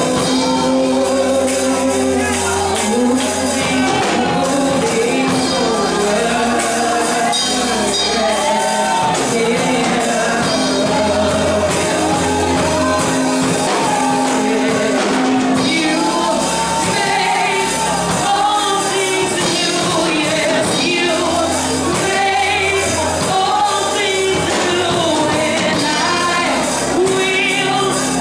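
A woman singing a gospel song into a handheld microphone, her melody sliding and bending through long held notes, over instrumental backing of sustained chords and a low bass line.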